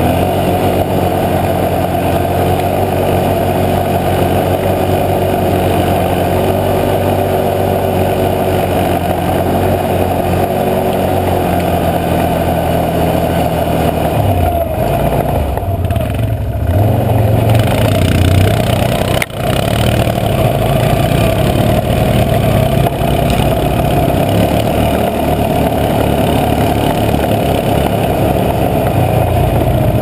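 Can-Am Outlander 650 XMR ATV engine running steadily on the trail. About halfway through the engine note dips and wavers as the throttle eases, then picks up louder. A single sharp knock comes about two-thirds of the way in.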